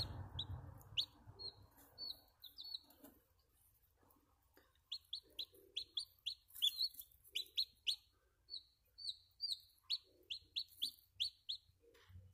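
Newly hatched chicken chick peeping: short, high, falling peeps, a few at first, then a quick run of about two to three a second from about five seconds in.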